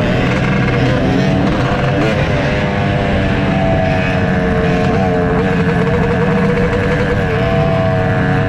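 Yamaha YZ250 two-stroke dirt bike engine running under way, its pitch rising and falling a little with the throttle.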